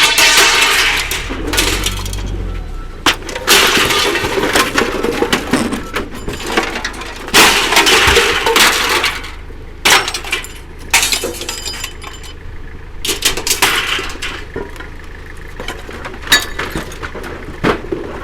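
Scrap metal being thrown down and sorted onto a pile: repeated crashing, clattering and clinking of metal pieces, with several sharp bangs.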